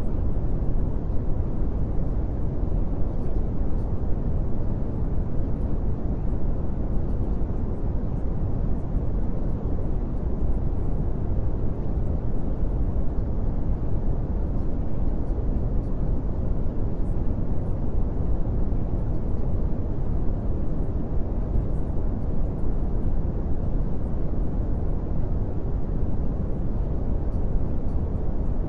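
Steady, unbroken rumbling noise, deep and even like brown noise, with no tune or rhythm: the masking sound bed a subliminal track hides its affirmations under.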